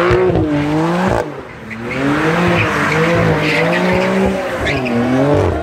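Car engine revving up and down hard while the convertible spins its tyres in donuts on a wet road, with the hiss of tyre slip and water spray. The revs drop briefly about a second in, then climb and waver again.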